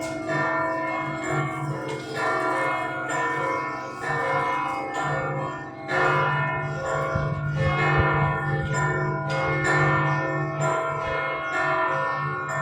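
Church bells of St John's Co-Cathedral pealing, bells 1, 3, 4, 5 and 6 struck in quick succession with their tones overlapping and ringing on. A deep bell tone swells louder about six seconds in.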